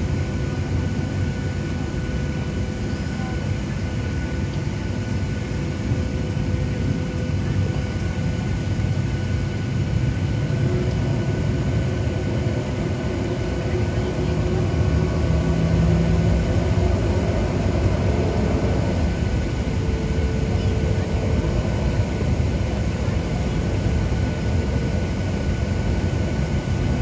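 Boeing 737 cabin noise over the wing while taxiing: a steady low rumble from the jet engines at taxi power, with a few steady whining tones above it, growing a little louder about six seconds in and again about fourteen seconds in.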